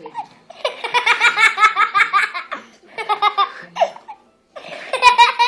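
A young child's high-pitched belly laughter, in rapid repeated bursts: a long run from about half a second in to two and a half seconds, a shorter run around three seconds, and another burst near the end.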